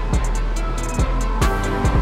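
Background electronic music with a steady kick-drum beat and quick hi-hat ticks.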